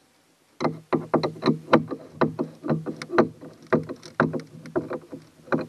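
Hand tools knocking and rattling against the inside of a fiberglass boat hull, a quick irregular run of sharp knocks, several a second, starting about half a second in.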